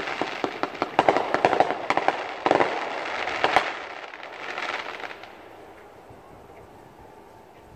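Fireworks crackling: a dense run of rapid sharp pops and crackles that dies away about five seconds in.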